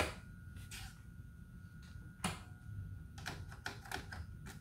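Clicking of the switches and piano-key buttons on a Hitachi top-loading VCR: a few single clicks a second or so apart, then a quick run of clicks near the end. No motor or tape sound follows, since the machine is dead and does not power up.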